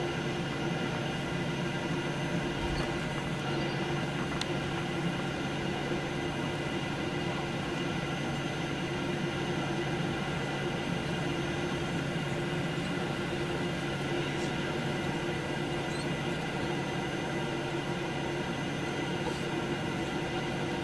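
Boeing 737-800's CFM56 jet engines heard from inside the cabin, running at low taxi power: an even hum with several steady whining tones above it.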